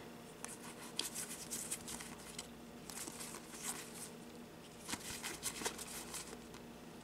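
Faint soft flicks and slides of playing cards being leafed through by hand, in small scattered clusters.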